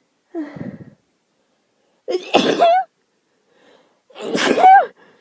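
A girl sneezing twice, about two seconds apart, the second sneeze the louder, after a shorter, softer breath sound at the start. The sneezes come from an allergy attack.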